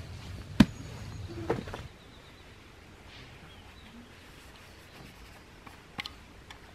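Camping gear being handled while packing up: a sharp click about half a second in and some rustling of a stuff sack, then quiet forest ambience from about two seconds on, with a few small clicks near the end as a cup is handled.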